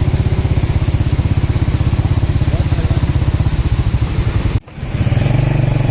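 Motorcycle engine running with a fast, even firing beat. The sound cuts out briefly about four and a half seconds in, then picks up again.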